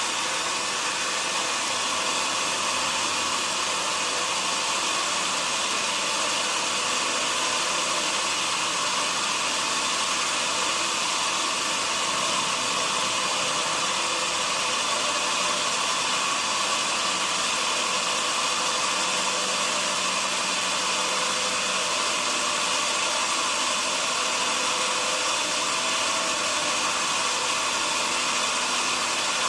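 Sawmill machinery running steadily: a constant, even hissing noise with no breaks or changes.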